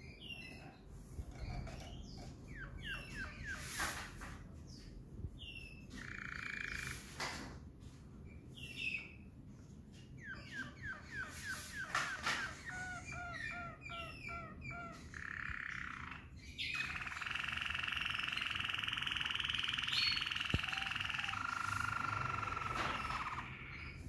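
Male Waterslager canary singing: phrases of quickly repeated notes, and in the second half a long, even rolling trill held for several seconds.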